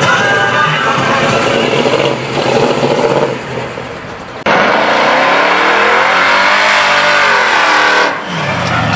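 Box-body Chevrolet Caprice engines revving hard in short clips joined by abrupt cuts. About halfway through, one engine revs up and falls back down over a few seconds.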